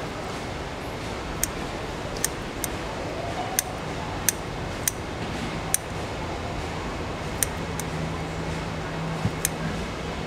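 Kitchen scissors snipping through mantis shrimp shells: about ten sharp, crisp clicks at uneven intervals. A low steady hum comes in about four seconds in.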